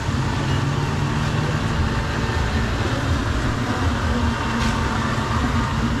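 Street-market background noise: a steady low rumble with a hum running through it, and a faint click near the end.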